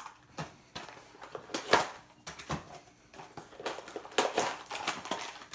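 Small cardboard mystery-figure boxes being handled and torn open: a run of irregular scrapes and sharp clicks, the loudest about two seconds in.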